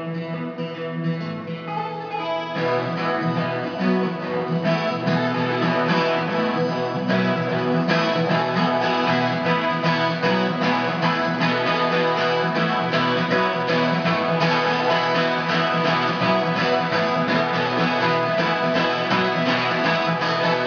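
Solo acoustic guitar playing, softer at first and then fuller and louder from about two and a half seconds in, with evenly repeated strokes.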